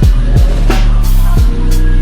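Electronic background music: a deep, sustained bass with punchy drum hits and sharp cymbal strokes.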